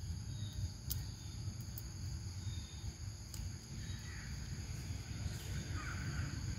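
Outdoor ambience: a steady high-pitched insect drone over a low rumble, with a few faint clicks and faint bird calls, caw-like, around four to six seconds in.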